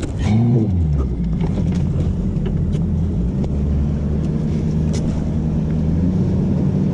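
An engine running at a steady speed, with a short rise and fall in pitch about half a second in.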